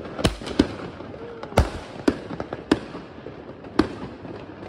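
New Year fireworks and firecrackers going off all around: about half a dozen sharp bangs at irregular intervals, with smaller cracks between them, over a continuous background of crackling.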